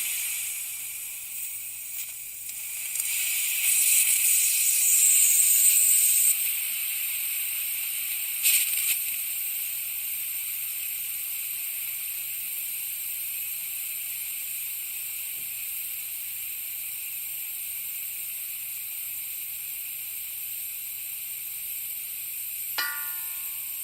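Compressed gas hissing steadily out of a leaking oxygen cylinder, a high hiss. About four seconds in it grows louder for about two seconds, there is a short surge near nine seconds, and a brief squeak near the end.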